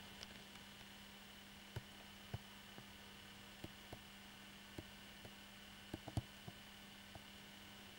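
Near silence: a steady low hum and hiss, with about a dozen short, faint clicks scattered through, the loudest about six seconds in.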